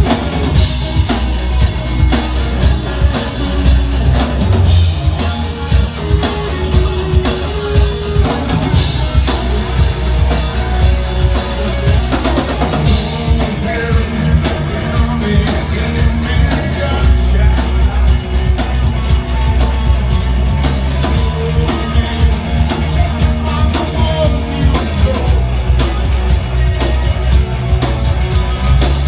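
A live band playing rock music, with a drum kit keeping a steady beat under bass and electric guitar.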